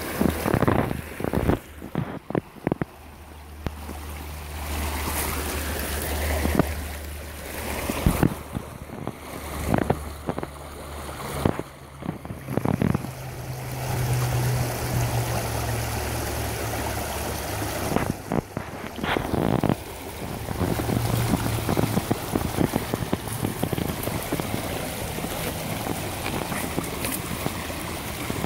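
Small rocky stream rushing and splashing over stones in a steady wash. Uneven gusts of wind on the microphone, heaviest in the first half, and a low hum that comes and goes.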